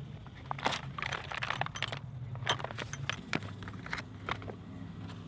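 Plastic pouch rustling and loose metal tools clinking as a scooter's under-seat tool kit, a tubular spark-plug socket and its steel bar, is pulled out and unwrapped. The clicks come in quick, irregular clusters.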